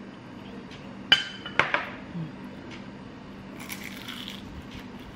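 A small ceramic bowl set down on a glass tabletop: two sharp clinks, the first ringing briefly, about a second and a half second apart. About three and a half seconds in, a short crunch as a bite is taken from a fried risole.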